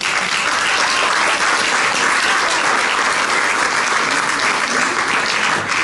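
Audience applauding, a steady dense patter of many hands clapping that tapers off near the end.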